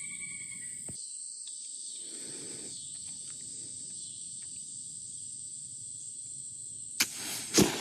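Crickets chirping steadily, then near the end a .45 flintlock dueling pistol fires: a sharp crack as the lock snaps and the priming flashes, and about half a second later the louder shot of the main charge, with a ringing tail.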